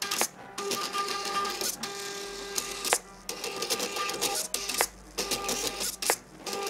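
Stepper motors of a 3D-printed, belt-driven XY plotter whining in short runs as the pen carriage draws lettering. Brief pauses and a few sharp clicks fall between the strokes.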